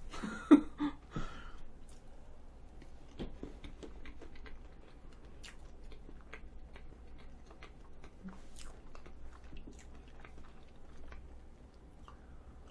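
Close-miked chewing of a soft apple fresh-cream cake: a run of faint wet mouth clicks and smacks, with one sharp click about half a second in.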